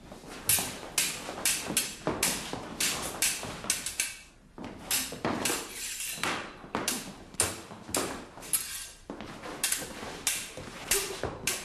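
Fencing swords clashing in a bout: a rapid, irregular run of sharp metallic clinks, several a second, with a brief lull about four seconds in and another about nine seconds in.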